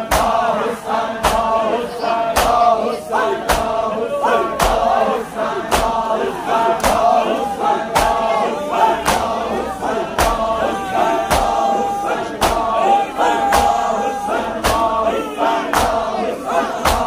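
Crowd of men chanting in unison over rhythmic chest-beating (matam), palms slapping bare chests together in a steady beat of about two slaps a second.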